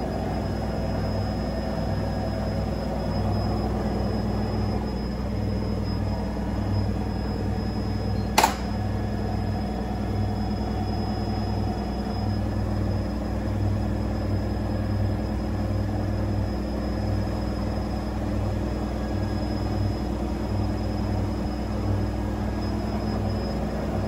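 Front-loading washing machine in its wash phase: the drum turning with water in it over a steady motor hum, a low tone pulsing on and off. One sharp click about eight seconds in.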